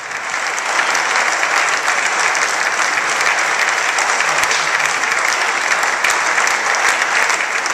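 Applause from a full parliament chamber: many people clapping, starting abruptly and carrying on steadily.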